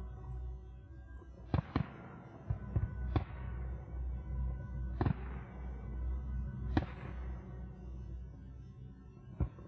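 Aerial fireworks shells bursting over music: about six sharp bangs spread through the clip, two of them close together, each trailing off in an echo.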